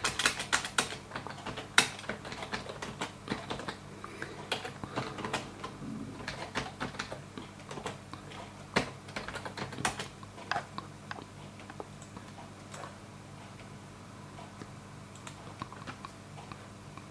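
Irregular clicking and tapping of a computer keyboard and mouse, densest in the first ten seconds and thinning out after, over a low steady hum.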